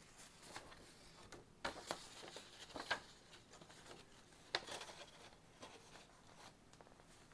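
Sheets of paper being picked up and laid onto a stack: faint rustling with a few short, sharper rustles and taps.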